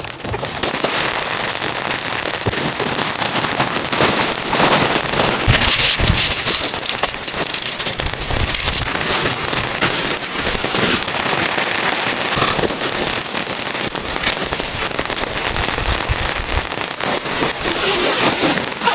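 Heavy rain falling on a hard surface, a dense steady crackle of drops.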